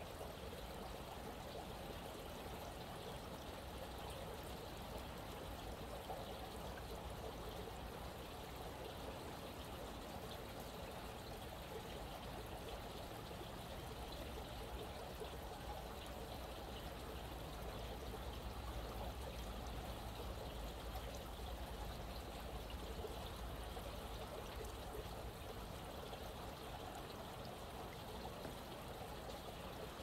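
A small stream flowing, a steady trickling rush of water.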